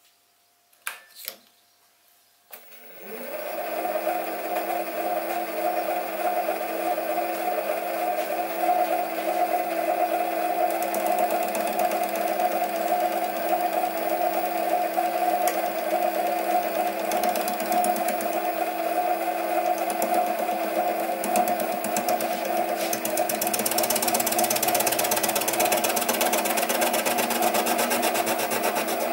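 A few clicks, then about two and a half seconds in the Sieg SC3 mini lathe's motor starts and spins up to a steady hum. The turning tool then faces the end of the steam chest boss held in the four-jaw chuck, adding a cutting hiss that grows stronger near the end.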